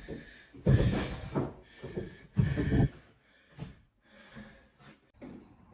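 Carpet being pried and torn up off a floor it was nailed to, with a pry bar: several short tearing noises. The strongest come just under a second in and about two and a half seconds in, then fainter ones.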